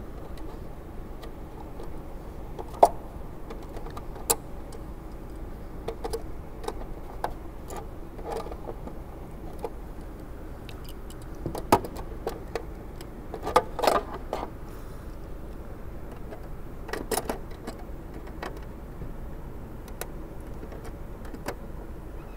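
Stiff galvanized wire mesh being pressed and bent into shape by hand: irregular metallic crinkling, clicks and taps, with a few sharper clicks scattered through, over a steady low hum.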